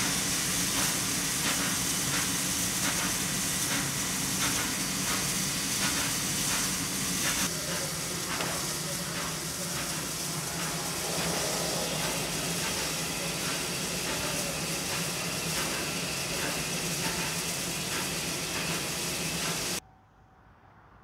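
Steam hissing steadily from the Pt47 steam locomotive. It cuts off abruptly near the end.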